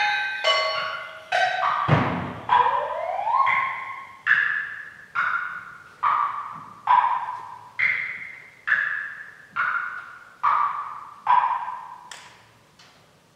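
Pitched percussion: a regular series of struck, bell-like ringing tones, a little more than one a second, each sounding sharply and decaying. A tone rises in pitch about three seconds in, and the strikes die away near the end.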